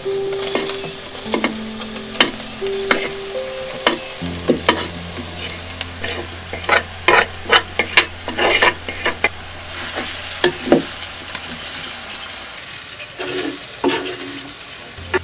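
Food sizzling and frying in a clay pot as spice-coated baby jackfruit pieces are tipped in and stirred with a spoon, with frequent scrapes and knocks against the pot, busiest around the middle.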